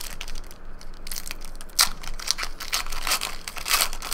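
Foil wrapper of a Panini trading card pack being torn open and crinkled by hand: a quick run of sharp crackles and crunches.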